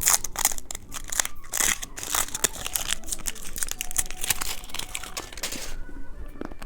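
A candy wrapper crinkled and torn open by hand, a dense run of crackles that dies down near the end.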